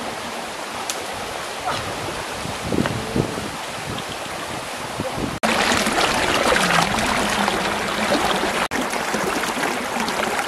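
Shallow stream rushing over rocks, fainter at first and much louder from about halfway through.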